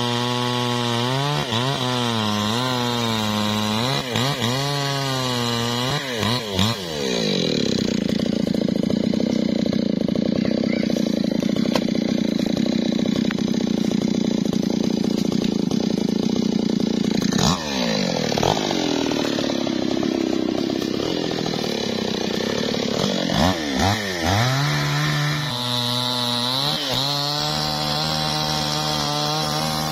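Two-stroke chainsaw felling a teak tree: the engine wavers at part throttle, goes to full throttle about seven seconds in as it cuts through the trunk, then drops back after about ten seconds and settles to an uneven idle near the end.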